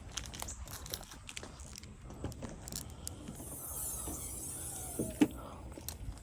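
Scattered light clicks and knocks of hands working at a car's open hood, with one sharper knock about five seconds in.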